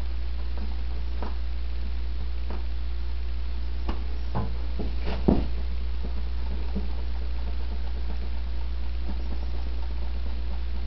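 Fingers rubbing and tapping a vinyl decal down onto a plastic fender: a few faint scratchy rubs and soft knocks, clustered about four to five seconds in, over a steady low hum.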